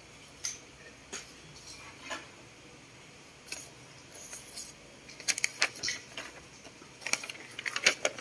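Light clicks and taps of small objects handled on a tabletop. They come scattered at first, then in quick clusters about five and seven seconds in.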